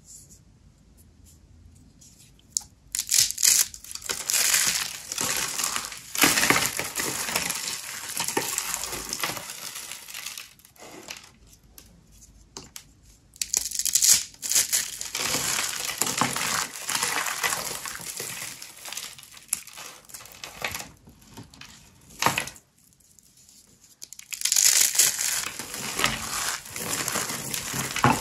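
Dry soap crunching and crumbling in three long spells of dense crackling, starting about two and a half seconds in, with short pauses about 11 and 23 seconds in.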